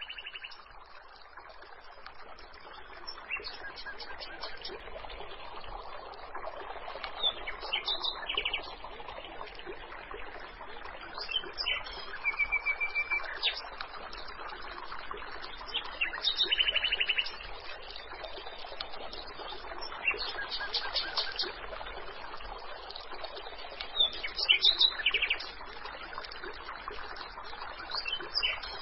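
Birds chirping in short, quick trills every few seconds over a steady background of running water.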